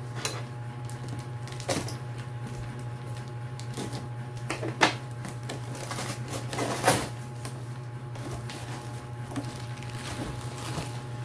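Cardboard box being opened by hand: flaps pulled back and taped seams torn, with scattered rustling and two louder sharp sounds about five and seven seconds in. A steady low hum runs underneath.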